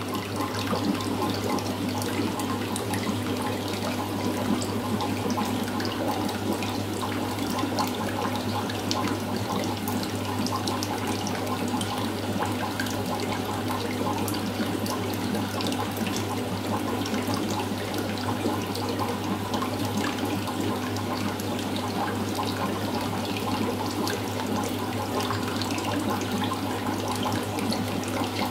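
Aquarium water trickling and bubbling steadily, full of small splashy ticks, over a low steady hum.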